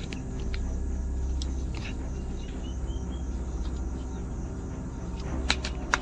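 Low, droning background music, with two sharp cracks about half a second apart near the end.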